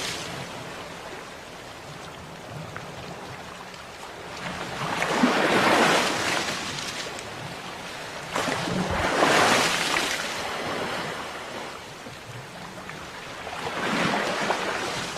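Sea waves breaking and washing onto a shore: a steady rush of surf that swells three times, about four seconds apart, the middle two swells the loudest.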